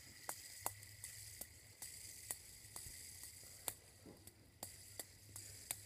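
Plastic fidget spinner spinning on its centre ball bearing alone, with its outer weight bearings removed: a faint steady whirring hiss with a thin high tone, and light sharp clicks about twice a second.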